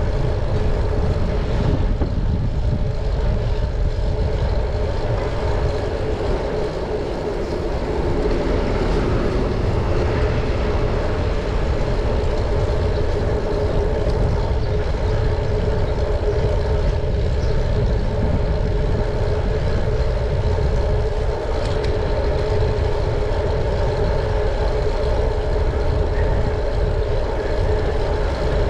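Wind rushing over the microphone of a moving bicycle, a continuous low rumble, with a steady hum underneath.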